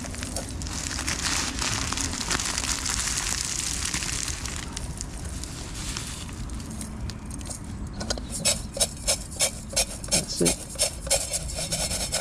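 Dry vermicelli being crushed by hand and dropped into a small metal camping pot, a crackly rustling. From about eight seconds in, rhythmic scraping at about two to three strokes a second as the pot is shaken on the stove's pot supports to toss the vermicelli while it roasts.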